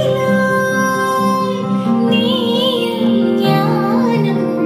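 A song with a high singing voice and instruments, played through an LG 5.1 home theatre speaker system as a listening test of its vocal clarity and treble.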